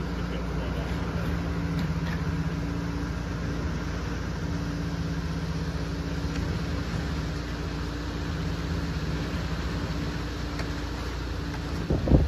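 An engine idling steadily, a constant low hum with a few held tones.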